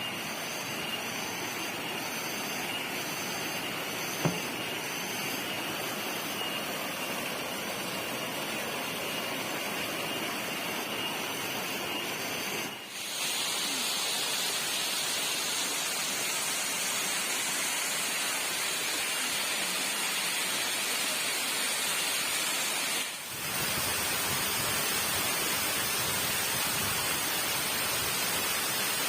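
Steady rushing of falling water from a waterfall. It is interrupted by two brief dips about 13 and 23 seconds in.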